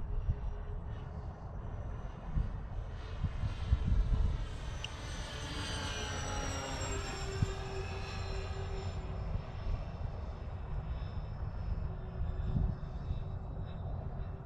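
Remote-control B-24 Liberator model's four brushless electric motors and propellers whining as it flies past, growing louder about halfway through and then dropping in pitch as it goes by.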